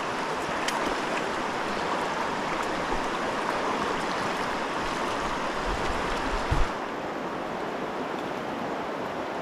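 Steady rush of river current. A low rumble builds about five seconds in and stops suddenly, after which the sound is slightly duller.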